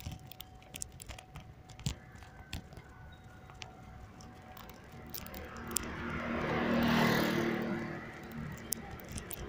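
A motor vehicle passing close by: its engine and road noise swell up about halfway through, are loudest a little later, then fade. Before that, scattered light clicks and crackling rustles.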